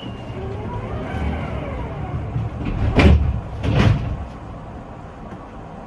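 Tram doors closing: a whine that rises and falls, then two heavy thuds less than a second apart, over the low rumble of the tram.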